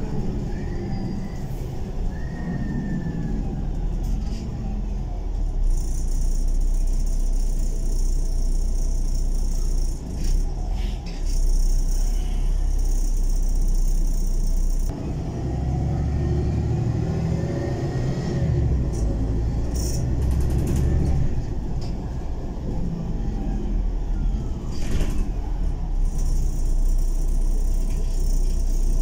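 City bus engine and road noise heard from inside the passenger cabin: a steady low rumble with the engine's pitch rising and falling as the bus drives on, a high hiss for several seconds in the first half, and a few short rattles and clicks.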